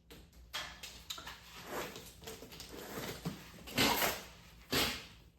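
Handling noises: a series of rustles and light knocks, with the two loudest about four and five seconds in.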